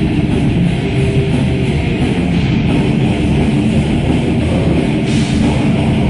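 Heavy metal band playing live: distorted electric guitars over a drum kit, loud and unbroken.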